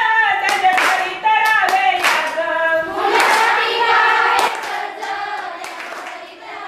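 A group of girls singing together, clapping their hands in time about twice a second. The singing and clapping fade out over the last couple of seconds.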